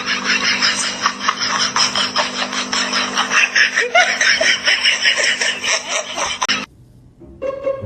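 A person laughing hard, a rapid unbroken run of laughs over a steady low hum, cutting off suddenly near the end.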